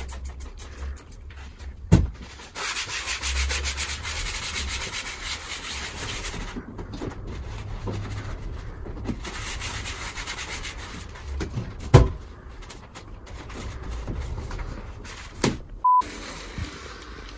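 Gloved hand wiping down a padded treatment table, quick rubbing strokes over the upholstery, with a couple of sharp knocks about two and twelve seconds in. A short beep near the end.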